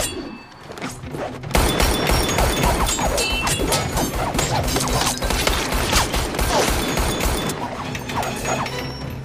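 Action-film fight soundtrack: a loud crash about a second and a half in, then a dense run of gunshots and hard hits over music.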